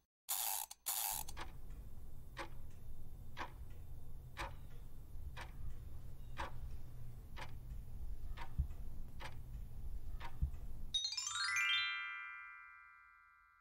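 A quiz countdown timer sound effect. Two short noise bursts come first, then clock ticks about once a second over a low drone. About eleven seconds in, a quick rising run of chime tones rings out and slowly fades as the answer is revealed.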